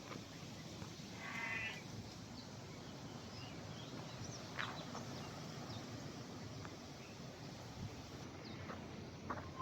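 A single animal call about a second in, lasting under a second, over a faint steady outdoor background with a few scattered short clicks.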